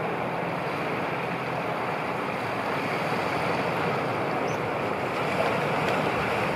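Steady wash of choppy, whitecapped sea waves, with wind over the water.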